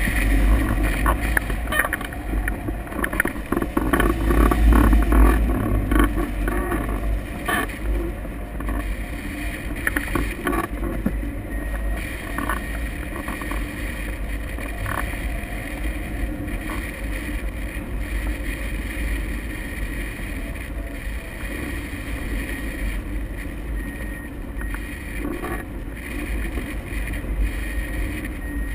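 Airflow buffeting the microphone of a camera mounted on a hang glider's wing during a towed flight: a steady low rumble with scattered light rattles and clicks, loudest about four to five seconds in.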